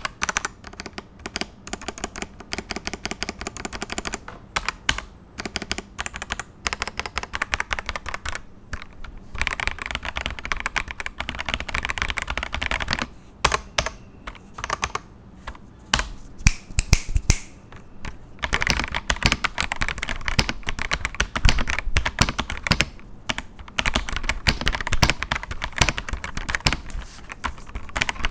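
Ajazz AK992 mechanical keyboard being typed on fast: rapid key clacks in runs with short pauses, a few louder single strokes around the middle. Its stabilizers are well lubed, so the larger keys don't rattle.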